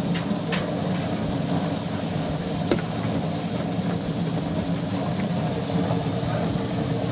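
Ginger washing-and-peeling machine running steadily, a constant mechanical hum with a couple of short knocks, the sharpest about three seconds in.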